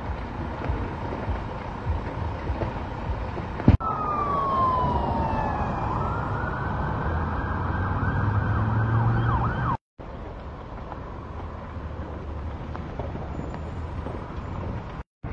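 Emergency vehicle siren wailing from about four seconds in until near ten seconds, its pitch falling, then rising and sweeping up and down, over steady background noise of traffic and wind. The sound cuts out briefly twice, at about four and ten seconds.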